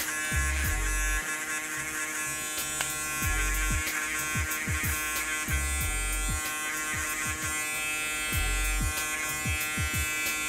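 Babyliss electric foil shaver buzzing steadily as it shaves the skin at the temple and sideburn. Background music with a deep, downward-sliding bass beat plays underneath.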